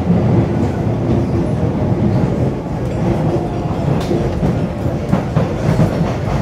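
Inside a Kawasaki–CRRC Sifang C151B metro train running on the line: a steady loud rumble of wheels on rail, with a faint steady hum from the running gear.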